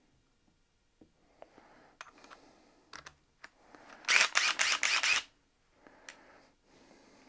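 Metallic clicking and rattling of a hex-shank drill bit being worked in and out of a DeWalt DCF840 impact driver's quick-release chuck, which has been jamming on this bit. A loud burst of rapid clicks comes about four seconds in and lasts about a second, with scattered single clicks around it.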